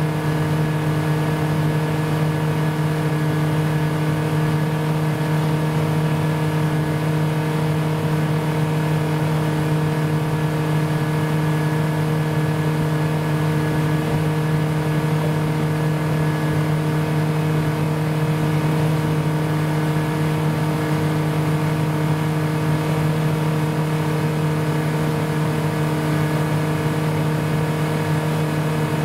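Motorboat engine running under way at a steady speed: an even hum that holds one pitch, with rushing noise beneath it.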